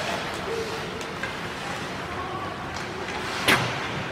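Ice hockey play in an arena: a steady hiss of skates on the ice, with a click at the start and a sharper crack of stick, puck or boards about three and a half seconds in.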